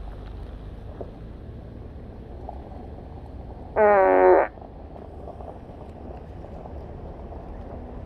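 A Tesla's external Boombox speaker plays one short built-in novelty sound effect about four seconds in: a single loud, buzzy, quavering tone under a second long, over steady low background rumble.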